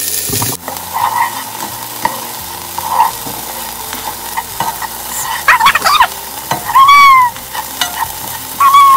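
Diced onions sizzling in oil in a non-stick pan while a plastic spoon stirs them, scraping the pan. A few short squeaks from the spoon dragging on the pan surface come about five to nine seconds in and are the loudest sounds.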